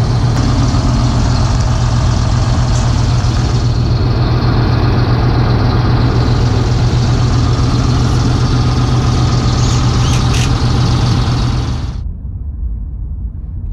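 Large engine idling steadily with a strong deep hum. About twelve seconds in it cuts off abruptly and is replaced by quieter road noise heard from inside a car.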